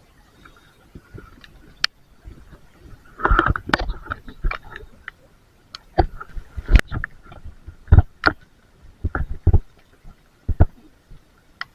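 A series of irregular knocks and thumps, thickest from about three to five seconds in, over a faint steady high hum.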